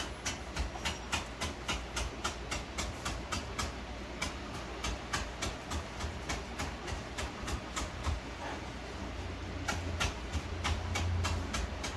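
Rhythmic sharp knocks, about three a second, that pause for a second or two about two-thirds of the way through and then resume.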